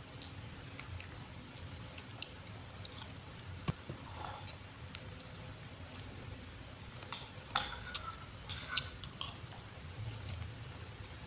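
A person chewing and eating close to the microphone, with soft mouth sounds and scattered small clicks of cutlery against a plate, more of them about seven to nine seconds in.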